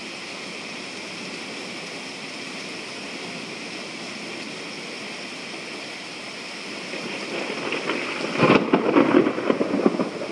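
Steady rain falling, then thunder building from about seven seconds in and breaking into a loud, crackling clap near the end.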